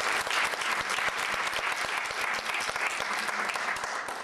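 Audience applauding, a dense patter of many hands clapping that gradually thins and fades toward the end.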